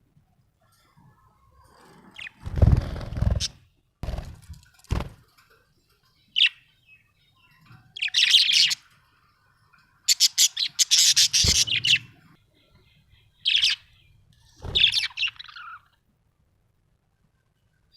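Pet budgerigar chirping in short clusters of rapid high chirps with pauses between them, the longest run of chirrups about two-thirds of the way through. A few dull low bumps come about three and five seconds in.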